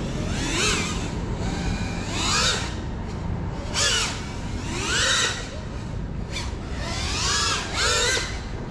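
GEPRC CineLog35 FPV drone's motors whining, the pitch rising and falling again in repeated throttle bursts, several in a row.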